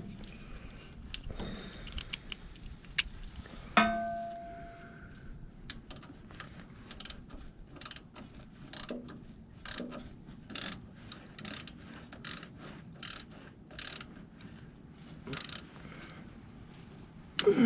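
Ratchet wrench clicking in short strokes, about two a second, from about six seconds in until near the end, as the starter's mounting bolts are run in. A single ringing metal clink of a tool comes about four seconds in.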